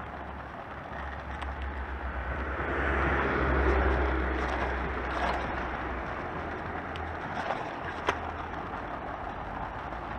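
Oxelo Town 9 EF V2 kick scooter rolling over asphalt: a steady road rumble with wind on the microphone, a little louder about three to four seconds in, and a few sharp clicks from the ride.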